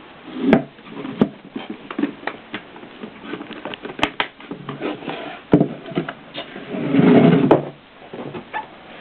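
1920s Erika typewriter clacking as its keys are struck at an uneven pace, a few strokes a second. About seven seconds in comes a longer scraping sound, the loudest part.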